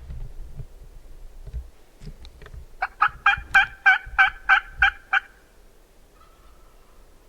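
A turkey call sounding a run of about eight evenly spaced hen yelps, about three a second, starting roughly three seconds in and lasting some two and a half seconds.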